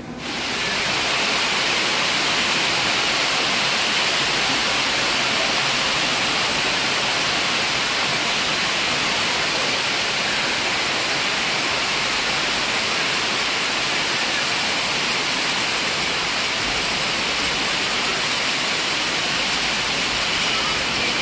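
Heavy rain pouring down in a windstorm: a steady, dense hiss of water that cuts in suddenly and holds without a break.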